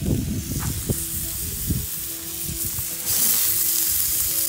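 Bacon-wrapped hot dogs frying on a hot Blackstone tabletop griddle: a steady sizzle that starts suddenly about three seconds in as the sausages go down on the plate. Before it come a few low knocks of handling.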